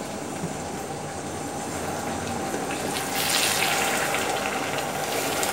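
Hot butter-and-sugar rum glaze bubbling and sizzling in a saucepan as it is stirred with a spoon, growing louder and brighter about three seconds in.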